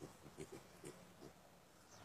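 Vietnamese pot-bellied pigs grunting softly as they root in the dirt: a quick run of short, faint grunts in the first second or so, then quieter.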